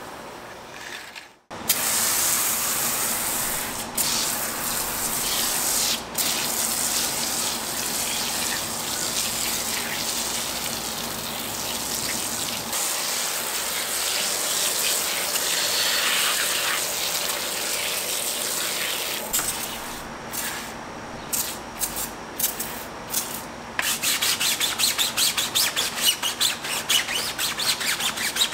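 IK hand-pump foam sprayer hissing steadily as it lays foam onto a car wheel, breaking into short spurts near the end. A brush then scrubs the foamed wheel in quick, even back-and-forth strokes.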